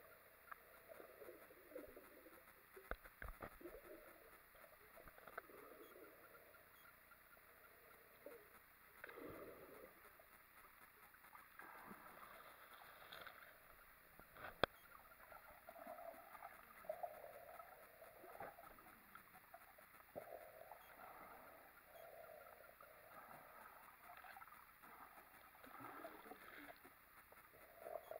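Faint, muffled underwater sounds from a submerged camera: water sloshing and moving around it, with a few sharp clicks and knocks, the loudest about midway.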